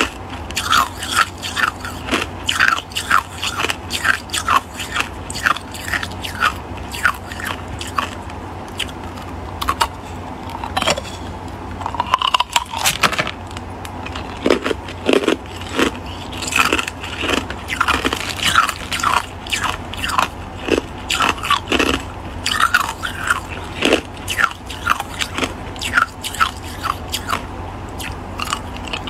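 Clear hard ice being bitten and chewed: a steady run of sharp crunches and cracks, about two or three a second, thinning briefly about halfway through.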